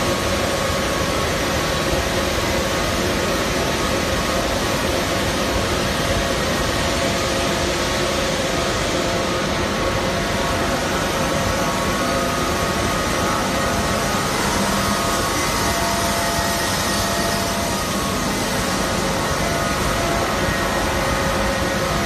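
High-speed paper rewinder running, winding a roll of brown kraft paper: a steady, even machine noise with a few faint steady tones humming through it.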